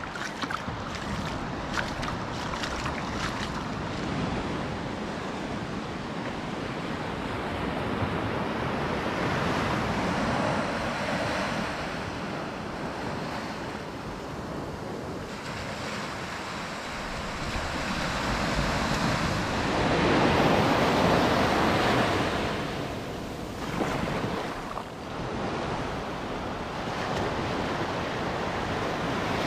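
Small waves breaking and washing up a sandy beach, with wind buffeting the microphone. The surf swells louder about twenty seconds in.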